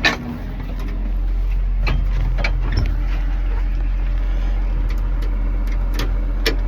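Sharp clicks and knocks of climbing into a CAT D8N bulldozer's cab and working the key switch, over a steady low rumble. The dozer's engine does not crank: the machine has no electrical power, later traced to a shorted battery.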